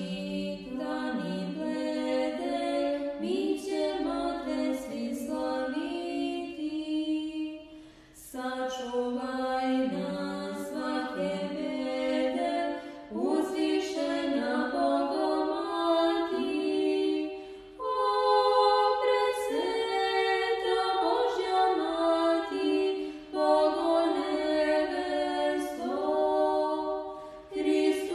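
Church choir singing a Serbian Orthodox hymn to the Mother of God a cappella, in several voice parts, in long sung phrases with brief pauses between them.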